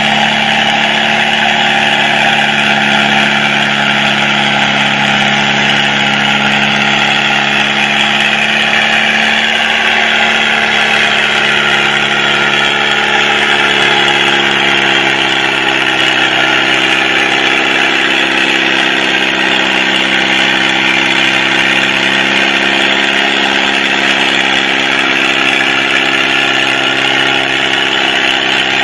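Farmall 400 tractor engine running steadily under load while pulling a weight-transfer sled. Its note changes about halfway through, then holds steady again.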